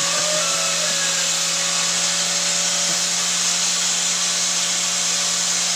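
Steady machine hum with an even hiss, unchanging throughout, like a motor running nearby.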